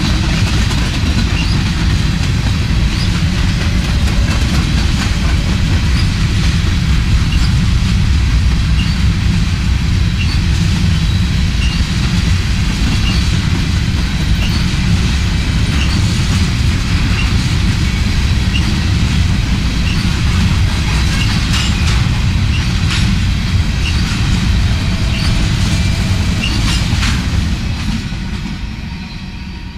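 Covered hopper cars of a freight train rolling past at close range: a steady heavy rumble of wheels on rail with regular clicks over the rail joints and a few sharp clanks in the second half. The sound fades as the last car goes by near the end.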